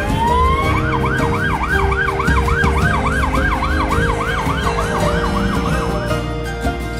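Siren winding up in a rising wail, then switching to a fast yelp of about three sweeps a second that stops about a second before the end, over a steady low engine rumble.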